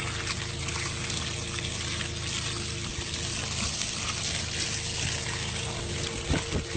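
Water pouring in a steady stream into a dirt burrow, splashing into the hole to flood out a spiny-tailed lizard.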